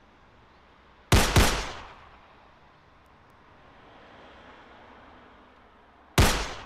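Three loud gunshots: two in quick succession about a second in, and a third about five seconds later, each followed by a short echoing tail.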